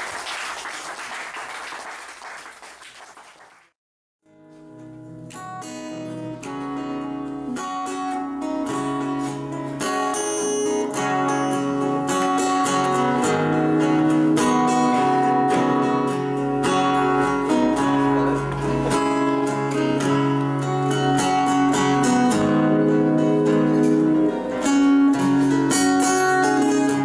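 Two acoustic guitars playing an instrumental passage, picked notes and chords ringing steadily. It begins about four seconds in, after a few seconds of crowd noise that fades and cuts off.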